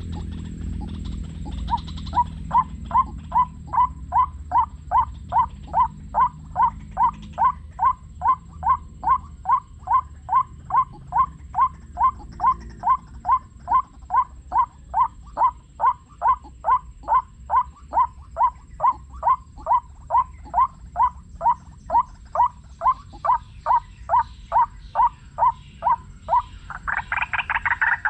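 White-breasted waterhen call played from a lure speaker: a short note near 1 kHz repeated steadily about twice a second, starting about two seconds in. Near the end it gives way to louder, faster calling.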